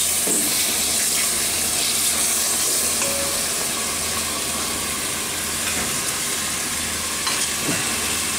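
Guanciale sizzling steadily in its rendered fat in a steel pan on a gas stove while a wooden spoon stirs it.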